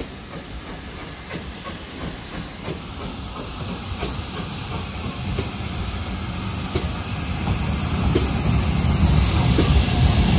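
Steam locomotive with steam hissing and regular sharp clicks, growing steadily louder as it draws closer.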